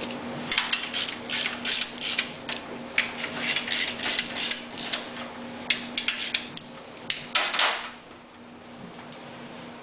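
Hand work on metal parts of a generator during stator fitting: a quick, irregular series of metal clicks and clatters that stops about eight seconds in. A faint steady hum runs underneath.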